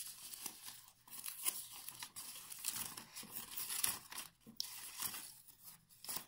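Paper rustling and crinkling in the hands as it is folded and taped: an irregular run of crisp crackles.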